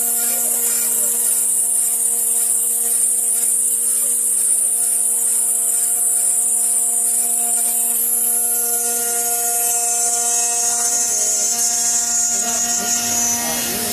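Stone CNC router spindle running steadily as its tool cuts a groove in granite under a water coolant spray: a steady motor whine with a strong high hiss of cutting and spray. The hiss thins out in the second half.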